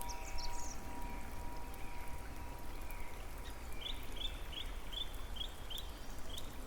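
Small birds chirping: a few high calls near the start, then a run of about eight short, evenly repeated chirps in the second half, over a steady rushing background of water or rain.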